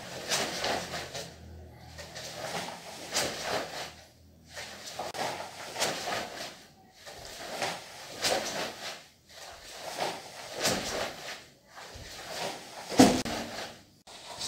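Cotton karate gi swishing and snapping with each punch and turn, and bare feet stepping and sliding on a hardwood floor, in short bursts every one to two seconds. The loudest comes about thirteen seconds in, with a heavier thud like a stamped step.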